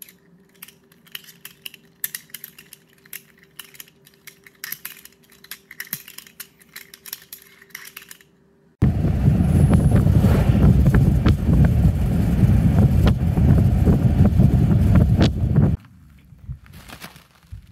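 Rapid plastic clicking and clacking from a white plastic reacher-grabber claw being snapped open and shut, over a faint steady hum. About nine seconds in, a loud, low noise cuts in, runs for about seven seconds, and stops suddenly.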